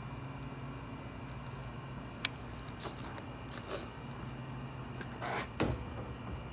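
Caulking gun laying more DAP caulk: one sharp click about two seconds in, then a few softer clicks and handling sounds, over a steady low hum.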